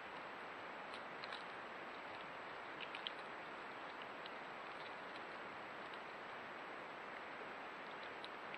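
Steady hiss from a Browning trail camera's microphone, with a thin steady high tone and a few faint ticks and rustles about a second and three seconds in.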